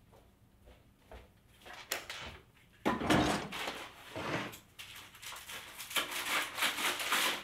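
A bathroom vanity drawer is pulled open and things inside are rummaged through and handled, giving a run of irregular knocks, clatters and rustles that starts faintly about two seconds in and grows louder about a second later.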